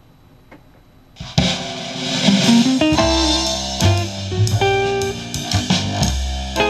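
Music with guitar and drums starts about a second in, played through a bookshelf loudspeaker driven by a home-built single-transistor, inductor-coupled class A amplifier. It sounds okay but without much bass, because the makeshift Radio Shack 70-volt PA transformer used as the coupling coil lacks the inductance to keep the low frequencies from bypassing the speaker.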